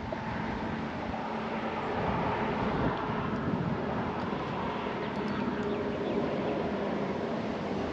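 Strong wind rushing over the microphone, with the steady hum of a distant engine underneath.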